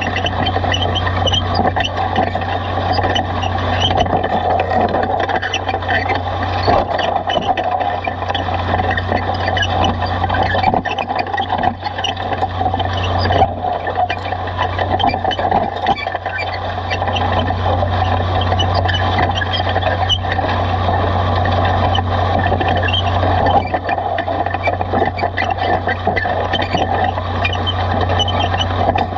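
Cockshutt 1850 tractor engine running steadily under load as it pulls a multi-bottom plow through sod, heard from the plow close behind the tractor.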